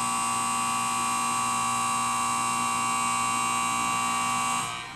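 Station platform's electronic departure bell ringing steadily, signalling that the train is about to leave; it stops suddenly near the end.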